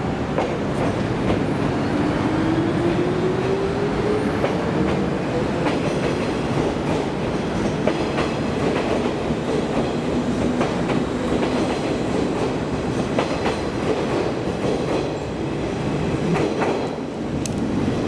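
A train running with a steady rumble and clicks of wheels over rail joints; a motor whine rises in pitch over the first few seconds as it picks up speed, and a steadier whine is heard around the middle.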